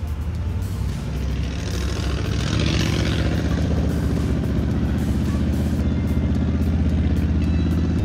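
Monster truck's engine (a pickup body on giant tyres) running in a steady low drone, growing louder from about two and a half seconds in as the truck drives closer.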